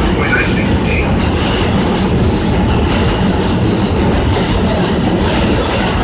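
A New York City subway train moving through the station: a loud, steady rumble of wheels on rails, with a short hiss about five seconds in.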